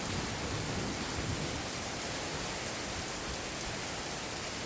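Steady rain pouring down.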